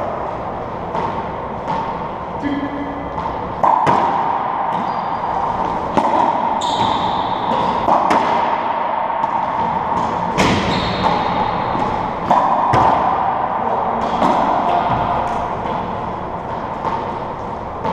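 Racquetball ball striking the racquets, front wall and hardwood floor of an enclosed court: sharp knocks every second or two, each ringing in the court's echo.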